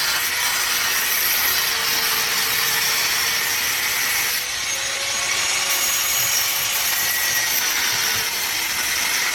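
Steady, loud hissing and scraping of a small power tool abrading a die-cast toy car, with a brief dip about four and a half seconds in.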